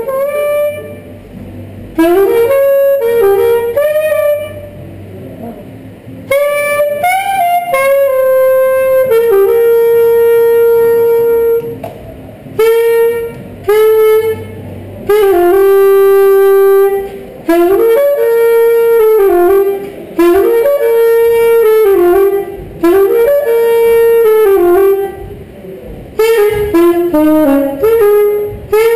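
Saxophone playing a melody in short phrases, separated by brief pauses.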